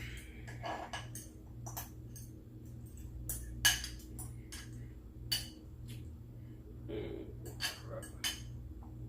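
Cutlery clinking and scraping against a plate in separate sharp clicks, the sharpest a little past the midpoint, with a short low vocal sound about seven seconds in, over a steady low hum.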